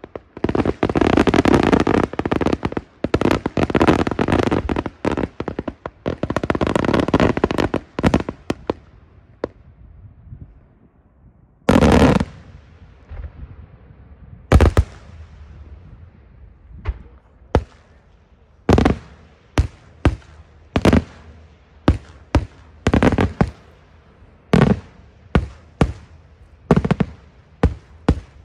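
Daytime aerial fireworks: a dense run of rapid crackling and bangs that dies away after several seconds. Then comes a single loud bang about twelve seconds in and another a couple of seconds later. From about halfway on there is a string of separate bangs, one or two a second.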